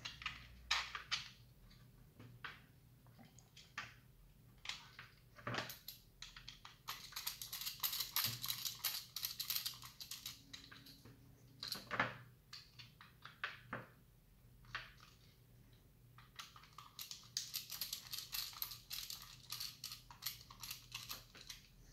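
Precision screwdriver driving small M2 screws into a plastic housing: two spells of fast, fine clicking and scraping. A few single knocks from the parts being handled fall between them.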